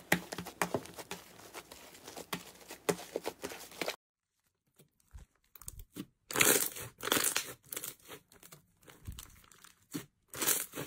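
Slime worked by hand: thick slime squeezed and stretched, crackling with many small clicks. After a short silence about four seconds in, glossy slime pressed and poked with a finger gives louder crackling clusters.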